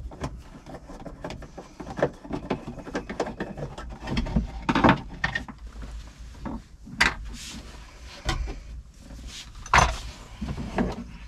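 Irregular clicks, knocks and rubbing as a screw is taken out and an interior panel of a tractor cab is worked loose, with a few louder knocks about five, seven and ten seconds in.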